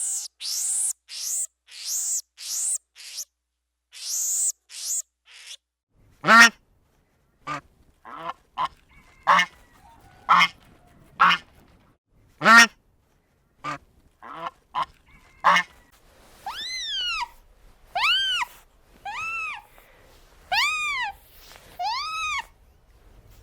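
A series of animal calls in three runs. First comes about eight high squeaks, each falling in pitch. After a short gap there are a dozen short harsh calls with separate pauses between them, and from about two-thirds of the way through come eight calls that rise and fall in pitch.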